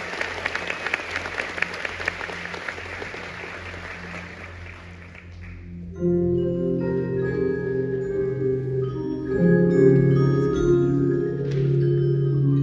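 Applause dying away, then about six seconds in, music starts suddenly on mallet percussion such as marimba and xylophone, with many struck, ringing notes over a lower sustained part.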